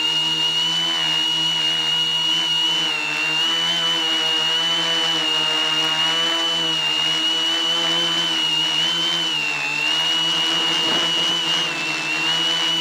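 Quadcopter's electric motors and propellers running close to the onboard camera: a steady buzzing whine with a strong high tone, its pitch dipping slightly a few times as the throttle changes.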